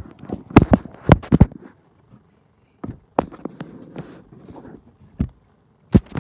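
Irregular knocks and rubbing from the phone being handled, several in quick succession in the first second and a half, then scattered single knocks after a short quiet gap, with a louder one near the end as the lens is covered.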